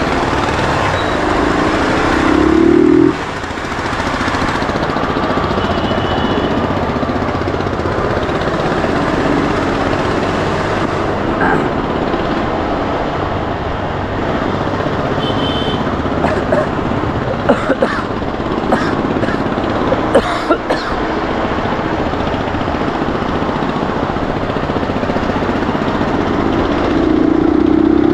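Motorcycle riding slowly through town traffic: engine running, with steady wind and road noise on a handlebar-mounted camera. A louder low tone about two seconds in and again near the end, and a few short clicks in the middle.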